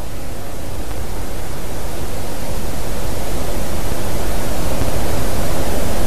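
Wind on an outdoor nest camera's microphone: a steady rushing noise with a low, uneven rumble that slowly grows louder.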